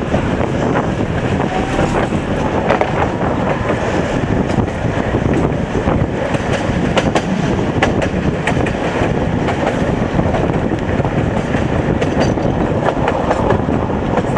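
Tatra T3 tram running along the track: a steady rumble of wheels on the rails, with sharp clicks and clatter from the rail joints, thickest a little before the middle.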